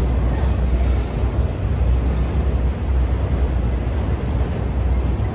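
Freight train of multilevel autorack cars rolling past close by: a steady, loud, deep rumble of steel wheels on rail.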